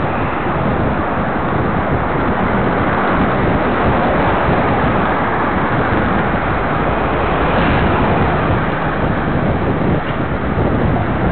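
Steady wind rushing over the microphone of a camera on a moving bicycle, over the noise of road traffic.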